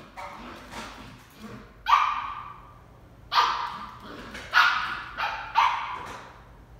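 Shetland sheepdog puppy barking: five high, sharp barks about a second apart, the first about two seconds in and the fourth softer than the rest.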